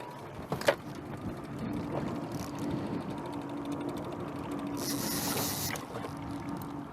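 Fishing reel's ratchet clicking rapidly with a salmon on the line just after the bite, over a steady boat-engine hum. There is a brief hiss about five seconds in.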